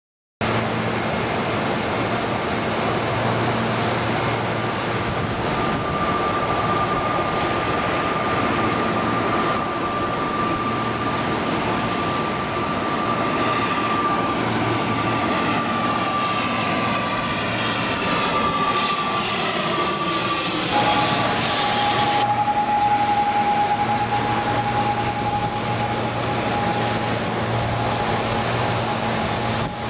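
ATR 72-500 twin-turboprop airliner on landing approach, flying over with a steady propeller and engine drone. A high whine in it drops in pitch about 21 seconds in as the aircraft passes overhead and moves away.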